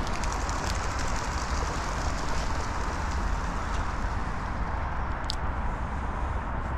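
Steady outdoor rumble and hiss with no break, with fine rapid ticking over the first few seconds and one brief high chirp about five seconds in.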